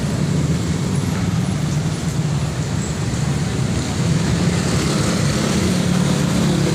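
Road traffic noise with a steady low engine hum from passing or idling vehicles.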